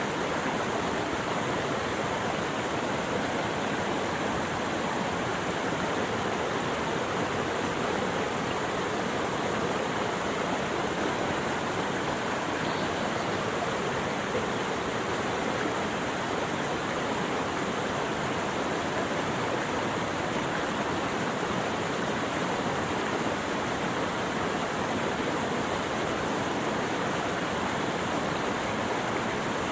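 Flowing water rushing steadily and evenly, without a break or change.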